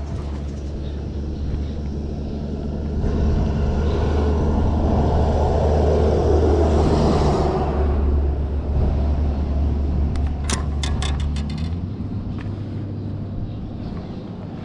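A small electric motor on a fishing boat hums steadily, with a swell of water churning and splashing in the middle. A quick run of sharp clicks or knocks comes about ten seconds in, and the hum stops soon after.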